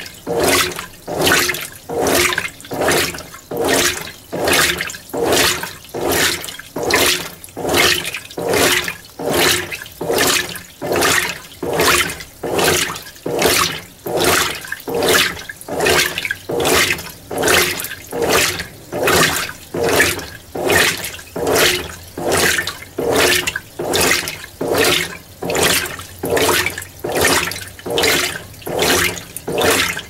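Mueller Energy 8 kg top-load washing machine agitating a load of whites in its first rinse. The water swishes and sloshes in a steady rhythm, about one and a half strokes a second, as the agitator reverses.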